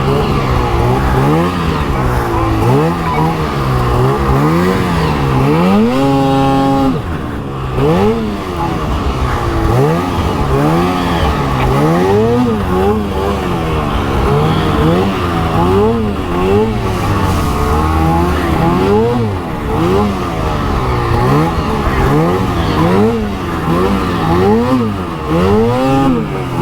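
Arctic Cat 858 snowmobile's two-stroke engine revving up and dropping back over and over while riding through deep snow, held at steady high revs for about a second some six seconds in.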